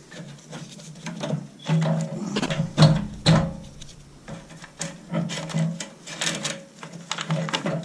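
Irregular knocks, clicks and scraping of hands working with tools and metal parts, over a steady low hum.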